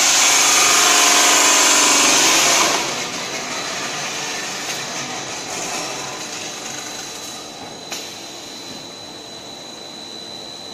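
PVC pipe extrusion line running. A loud, harsh noise lasts for about the first two and a half seconds, then gives way to the steadier running of the machinery with a constant high whine, and a single click about eight seconds in.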